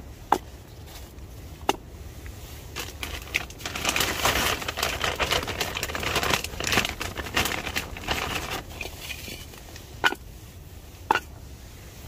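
Split firewood logs being handled and stacked beside a wood-burning stove: a few sharp wooden knocks as logs are set down, and a rustling, crinkling stretch in the middle.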